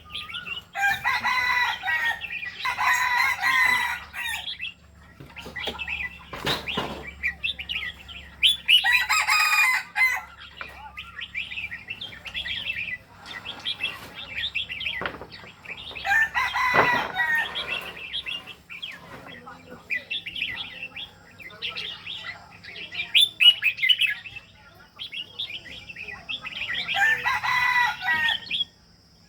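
A pet bird calling and singing: a running series of quick chirps and twitters, broken by four louder, longer calls spread through the passage.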